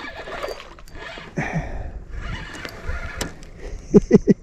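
Spinning reel being cranked to bring in a hooked fish, with water splashing as the fish fights near the surface. Three short, sharp loud sounds come close together near the end.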